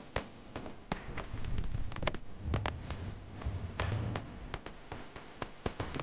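Irregular sharp taps and clicks of sun conures and budgies pecking and climbing on a metal wire cage as they feed on greens, over a low rumble.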